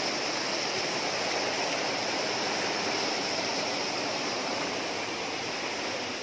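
Waterfall cascading over rocks close to the microphone: a steady rushing of white water.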